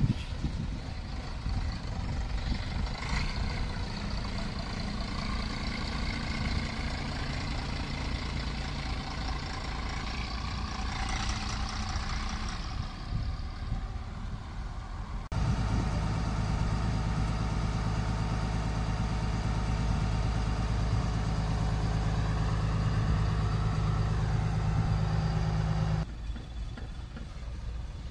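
Diesel bus engines running. A touring coach pulls away and drives off, its engine note shifting. After a sudden cut about halfway through comes a louder, steady engine hum, which cuts off again near the end.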